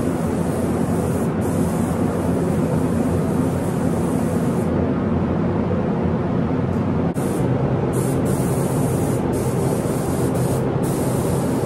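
Compressed-air automotive spray gun hissing as its trigger is pulled: a long pass to begin with, which stops about four and a half seconds in, then several short bursts from about eight seconds on. Under it runs a steady low mechanical hum.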